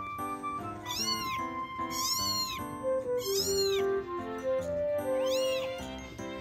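Grey Persian kitten wailing in four high meows, each rising and then falling in pitch, the distress cries of a young kitten placed on an unfamiliar toy on its first outing.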